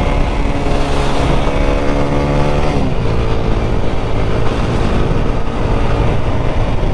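Motorcycle engine accelerating hard at full throttle. Its pitch climbs steadily, drops sharply at an upshift about three seconds in, then climbs again in the next gear.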